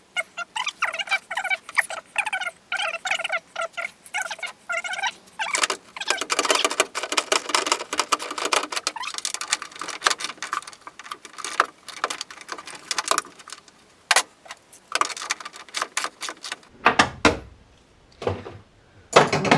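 Spanner turning the door-hinge nuts: a run of short, evenly spaced metallic chirps about every half second, then a scraping rattle and scattered sharp metal clicks and knocks, with a few dull thuds near the end.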